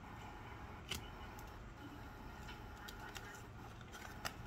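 Trading cards being handled and slid through the hands: a few faint clicks and taps, the sharpest about a second in and near the end, over a low steady room hum.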